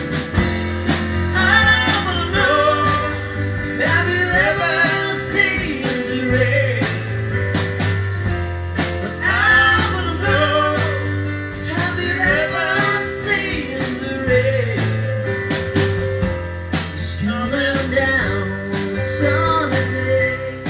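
A small live band playing a pop-rock song: male vocals sung in phrases of a few seconds, over held electric keyboard chords with sustained bass notes, strummed acoustic guitar, and a drum kit keeping time on the cymbals.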